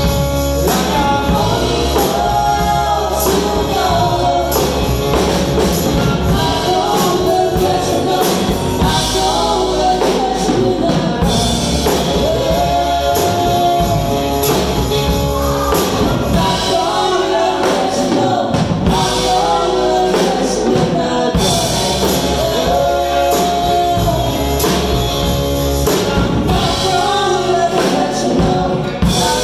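Live rock band playing: singing over electric guitar and a drum kit.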